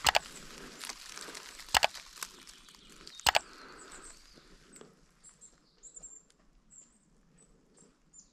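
Rustling with three sharp clicks, about a second and a half apart, in the first few seconds. Then small birds chirping faintly.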